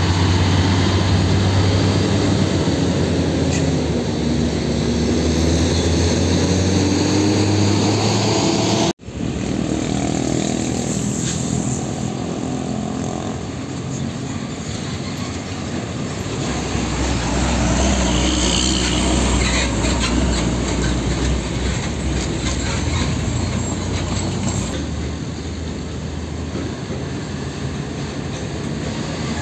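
Heavy diesel tanker trucks running in road traffic: a steady low engine hum for about nine seconds, a sudden cut, then passing traffic with a truck engine growing louder from about seventeen seconds in.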